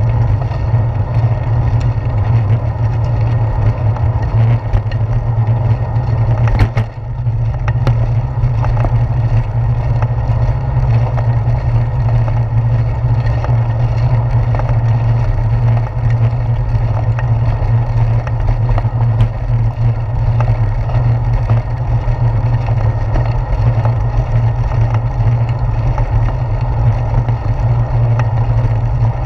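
Wind and road noise on a handlebar-mounted GoPro on a moving bicycle: a loud, steady low rumble with a fainter hiss of tyres on wet pavement, and a sharp knock about seven seconds in.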